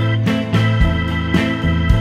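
Background music: an upbeat instrumental with sustained keyboard or guitar notes over a steady beat, about two beats a second.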